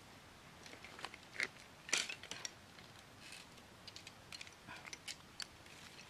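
Light clicks, taps and rattles of bamboo sticks, a plastic bottle and a wire-mesh bicycle basket being handled and set down, loudest in a short cluster about two seconds in.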